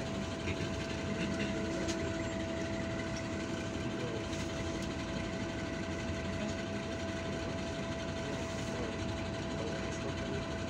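Inside the cabin of a MAN Lion's Classic city bus: the engine running steadily, with a constant high whine over the rumble, as the bus rolls slowly along.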